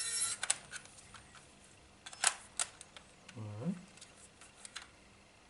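Electric precision screwdriver's motor whirring briefly at the start, then a series of small sharp clicks as the bit and screws are handled, with a short hum of voice about three and a half seconds in.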